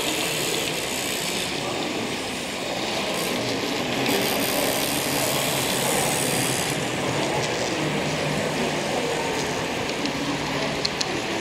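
Steady background din of a large room, an even noise with no clear machine rhythm. Its hiss grows brighter for a few seconds midway, and a few light clicks come near the end.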